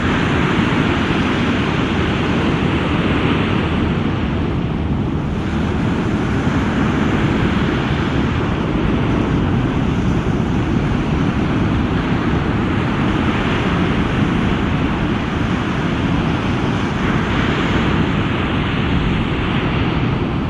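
Rough surf breaking and wind buffeting the microphone: a steady, loud rush of noise that swells and eases a little.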